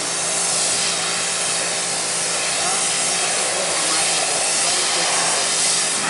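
STIHL RE 143 electric pressure washer spraying a high-pressure water jet against a van's side panel: a loud, steady hiss of spray with a faint steady hum under it.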